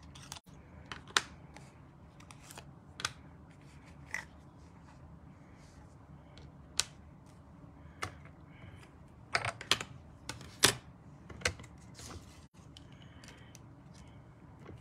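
Light clicks and taps of cutting plates, metal dies and die-cut cardstock being taken apart and handled after a die-cutting pass: scattered single clicks, then a quick run of clicks about two-thirds of the way through.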